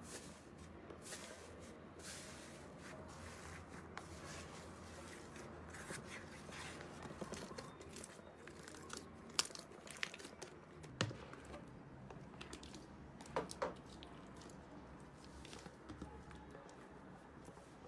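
Slime being worked by hand, with a steady run of small crackles and a few louder sharp pops and clicks in the middle stretch.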